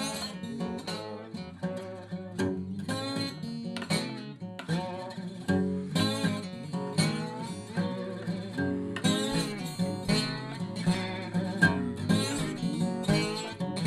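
Acoustic guitar music, plucked and strummed in a steady run of notes.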